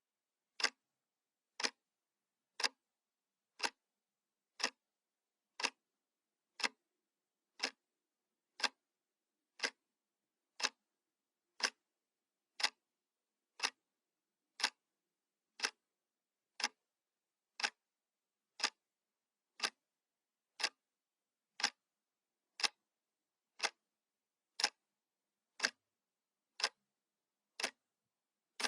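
Analog clock ticking, one sharp tick a second, evenly spaced, with silence between ticks.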